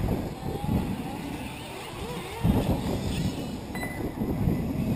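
Radio-controlled off-road race cars running around a dirt track, their motors whining up and down in pitch as they accelerate and slow.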